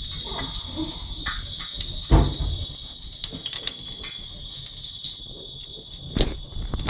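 Crickets chirring steadily, with two knocks, one about two seconds in and one near the end.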